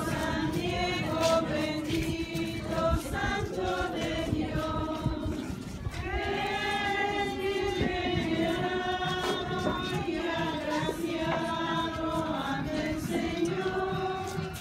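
A group of people singing a religious hymn together as they walk in procession. They hold long notes, and a new phrase begins about six seconds in.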